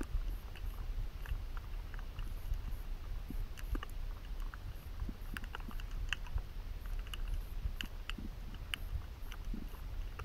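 Underwater ambience: a steady low rumble with irregular sharp clicks and crackles.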